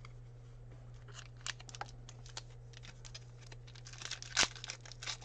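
Basketball trading cards being flipped through by hand, a run of light clicks and snaps of card stock, turning into denser crinkling of a foil pack wrapper about four seconds in, with one sharper snap. A faint steady electrical hum sits underneath.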